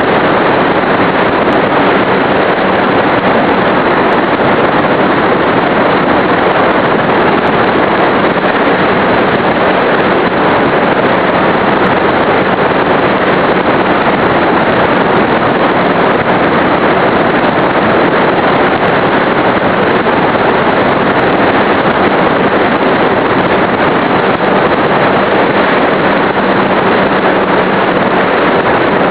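Steady loud rush of air and propeller noise on an RC plane's onboard camera microphone in flight. The E-flite Power 25 brushless motor makes a faint steady hum underneath.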